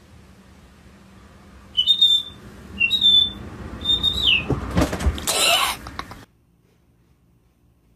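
Three short, high whistled chirps, each a held note that drops off at its end, followed by a loud rustling noise that cuts off suddenly.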